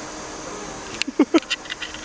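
A dog giving two short barks about a second in, set among a few sharp clicks over a steady faint background hum.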